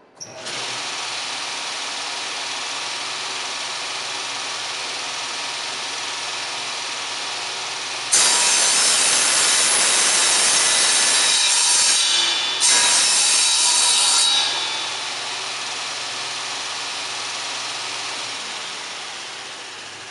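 SCM Minimax SC3 single-phase sliding table saw starting up, its blade running steadily at speed. Partway through it cuts a wooden board fed on the sliding table: a much louder sawing for about six seconds, with a brief break in the middle. The blade then runs free again and fades near the end.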